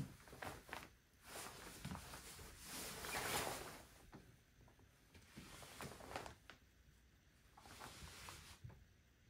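Rustling of a hooded waterproof taped-seam shell jacket's fabric as the wearer turns around, loudest about three seconds in, followed by a few faint brushes and taps.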